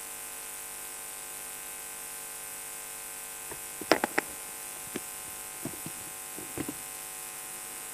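Steady electrical buzz from the microphone and PA line, with a small cluster of knocks and rustles about four seconds in and a few fainter ones near the end as the podium microphone is handled.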